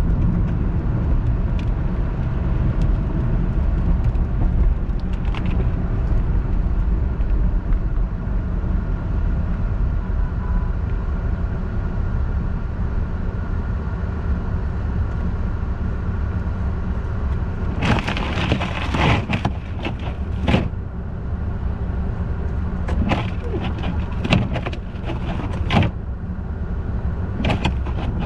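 Car driving on slushy snow-covered roads, heard from inside the cabin: a steady low road and engine rumble. From about two-thirds of the way in, repeated rushing, crackling splashes as slush is thrown against the car and windshield.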